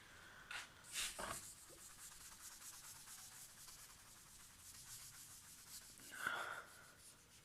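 Faint scratching and rubbing of a pen writing on paper, with two brief louder sounds about a second in and near the end.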